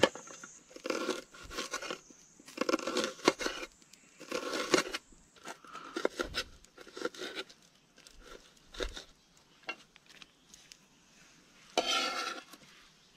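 Bursts of rustling, crunching and light clattering, as of things being handled, with scattered clicks between them and one more burst near the end.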